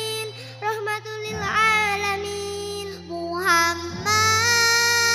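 Young girls singing a sholawat (Islamic devotional song) through microphones over a backing of held low notes, the melody sung with long held, gently wavering notes.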